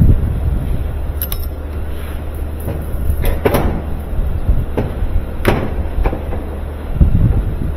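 Washing machine top panel being lowered and seated: a handful of sharp clicks and knocks of panel parts going into place, over a steady low hum.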